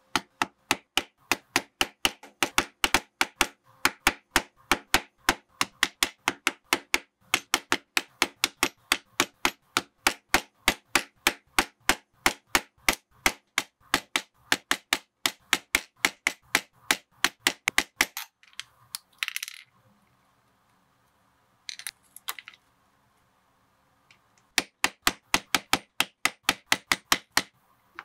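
Mallet blows on a punching tool driven into a leather strap on a work board: steady, sharp strikes about three a second. They stop for a few seconds after a short scraping rustle, then start again near the end.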